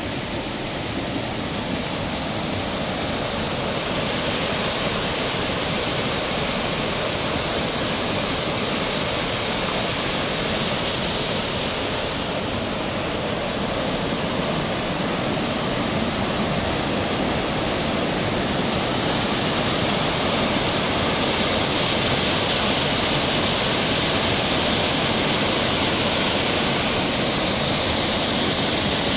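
Waterfall cascading over rocks into a rocky creek: a steady, even rush of falling and churning water, growing a little louder about twenty seconds in.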